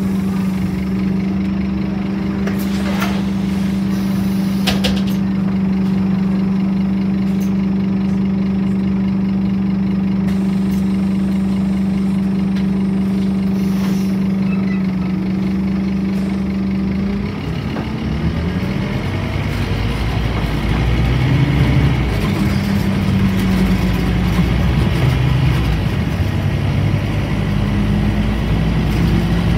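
Scania N230UD double-decker bus heard from inside the lower deck: its five-cylinder diesel idles with a steady hum while the bus stands, with a couple of light clicks. About 17 seconds in, the hum breaks off and the engine pulls harder and louder as the bus moves off and gathers speed.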